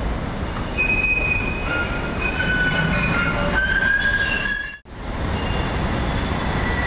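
Steel tram wheels squealing on curved track as a Vienna low-floor tram runs through a bend. Several thin, high squeals overlap and shift pitch over a low rumble, then cut off abruptly about five seconds in. Street and rail rumble follows, with a thin steady squeal starting near the end.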